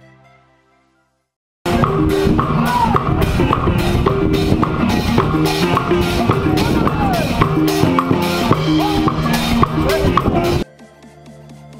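Marimba band with hand drums playing a lively tune: short repeated mallet notes over steady drum beats. It starts abruptly after a moment of silence about two seconds in and cuts off sharply near the end, giving way to soft background music.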